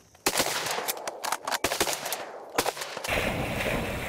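A rapid volley of shotgun blasts from several duck hunters firing together, a string of sharp cracks over about two and a half seconds.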